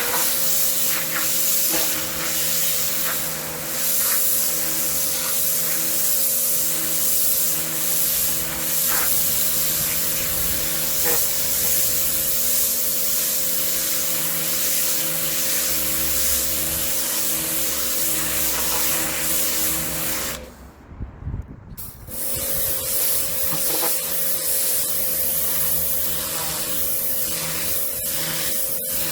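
Kärcher K7 pressure washer jetting water: a loud, steady spray hiss over the pump motor's hum. About two-thirds of the way through, both the spray and the motor stop for a second or two, then start again.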